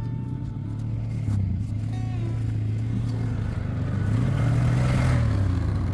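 Quad (ATV) engine running steadily, revving up about four seconds in with a rise in pitch and noise, then easing back.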